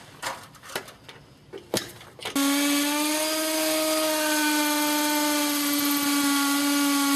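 A few light handling clicks and taps, then about two and a half seconds in a power drill starts and runs at a steady pitch, pre-drilling a pilot hole for a Tapcon masonry screw.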